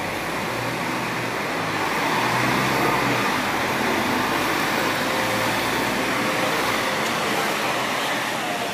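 City street traffic: a road vehicle's engine humming past along with tyre and street noise, loudest about two to three seconds in, the low hum fading out near the end.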